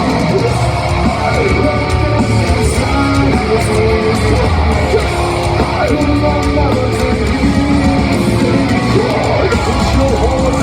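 Live heavy metal band performing: loud distorted electric guitars and drums, with sung and shouted vocals over them.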